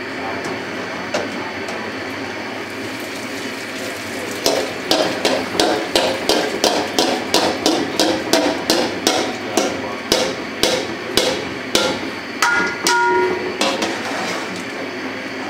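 Perforated steel strainer knocking against a large aluminium cooking pot while half-boiled rice is scooped out of the boiling water: a steady run of sharp taps, about three a second for several seconds, then a brief metallic ringing scrape.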